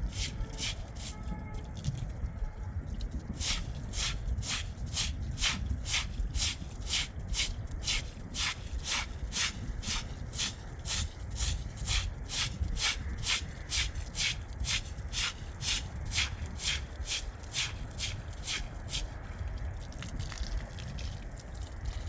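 Wood being worked by hand in steady rasping strokes, about two or three a second, growing stronger about three seconds in.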